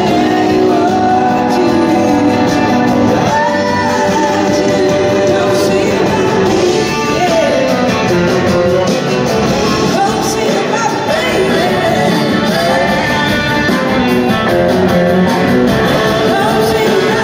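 Live rock band playing with electric guitars and drums, a lead singer and backing vocalists, heard from the audience in a large hall.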